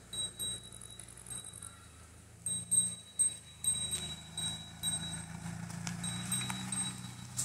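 Small bells on walking cattle clinking and ringing in short, repeated high rings, over the low hum of a slow-moving car.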